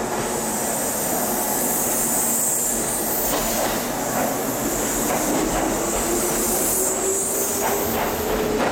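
Kintetsu 12410-series limited express electric train pulling away from the platform. Its motors give a whine that rises steadily in pitch as it gathers speed, over clicking from the wheels on the rails and a high hiss.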